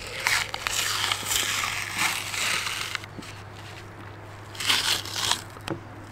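Membrane being peeled off the bone side of a rack of pork spareribs, gripped with a paper towel: crinkling paper and tearing skin, in a long spell and then a shorter one about two-thirds of the way in.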